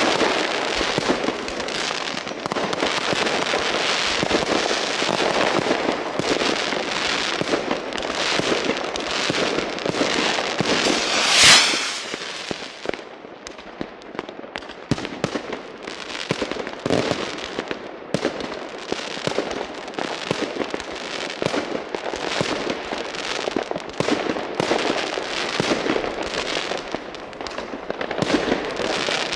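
New Year's Eve fireworks: a dense, continuous crackle of many firecrackers and rockets bursting. The loudest blast comes about eleven seconds in, and after it the bangs come sparser and quieter.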